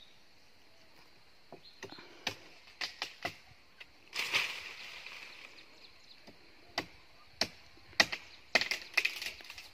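Machete chopping into a tree's wood: a dozen or so sharp, irregular blows, bunched more closely near the end, with a short rushing noise about four seconds in.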